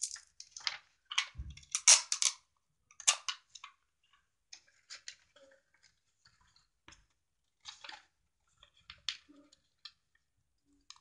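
Paper rustling and crinkling as hands fold and press a small paper box, busy for the first few seconds and then only scattered crinkles, with a soft thump about a second and a half in.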